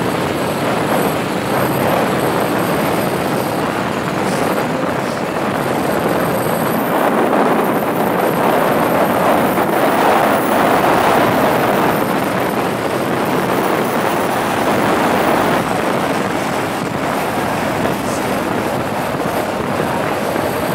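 Wind rushing over the microphone of a moving motorcycle, mixed with the Harley-Davidson Sportster 1200's air-cooled V-twin engine and road noise; the rush swells a little about eight to twelve seconds in.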